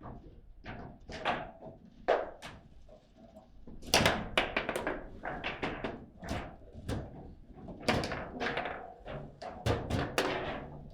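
Table football game in play: the ball being struck by the players on the rods and knocking against the table walls, in irregular runs of sharp knocks, with quick flurries about four seconds in and again near the end.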